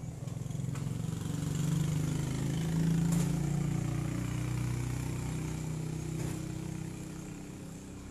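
A motor vehicle's engine passing close by: a low drone that grows louder over the first two or three seconds, then fades away.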